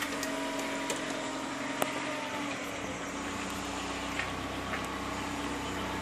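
A motor vehicle's engine running steadily with a constant hum. A deeper low rumble joins about two and a half seconds in, with a couple of faint clicks.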